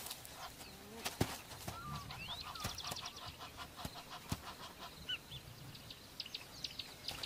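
Faint bush ambience of scattered bird calls: short chirps and whistled glides, with a quick run of high ticks around the middle. Occasional soft clicks and crackles are heard among them.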